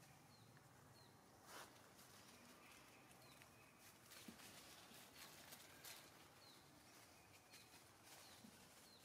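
Quiet outdoor forest ambience: a faint high chirp repeats about every half second, with a few soft rustles of dry leaves.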